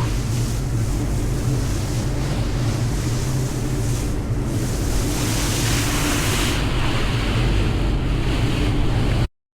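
Speedboat engine running steadily while under way, with wind buffeting the microphone and water rushing past the hull. The sound cuts off suddenly near the end.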